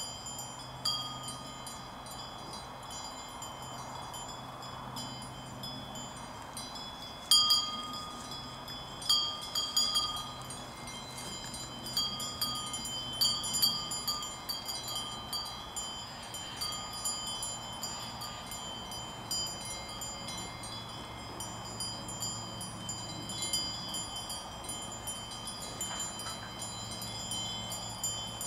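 Several cowbells on grazing cows' neck straps clanking and ringing irregularly as the cows move their heads, with the loudest clanks about seven seconds in and quicker, busier ringing later on.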